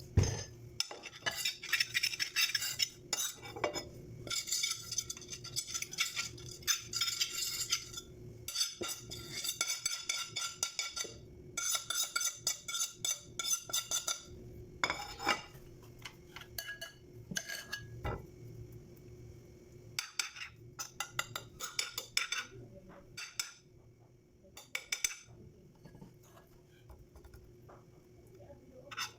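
A utensil clinking and scraping against a plate in long runs of quick strokes, thinning out to scattered, quieter clinks in the second half.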